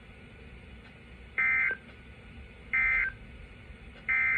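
NOAA Weather Radio SAME end-of-message code: three short, identical buzzy data bursts about 1.3 s apart, each warbling between two high tones, signalling the end of the broadcast message.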